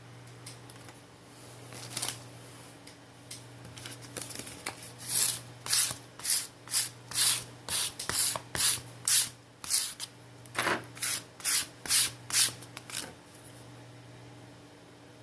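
A tool scraping repeatedly across a phone's frame in short strokes, about two a second, starting about five seconds in and stopping near the end: glass fragments and adhesive being scraped off after the display has been removed.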